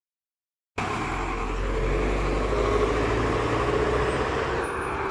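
A heavy vehicle's engine running steadily close by, a low rumble that cuts in suddenly about a second in and eases slightly near the end.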